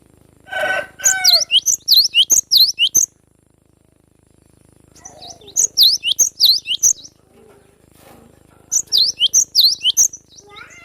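Cinereous tit (gelatik batu) singing: three bursts of rapid, high chirping notes with pauses between them, the first opening with a harsh, buzzy note.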